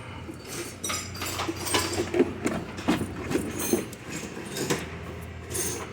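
Scattered metallic clicks, knocks and rattles of hand tools and parts being worked loose in a car's engine bay, a few with a brief high ring.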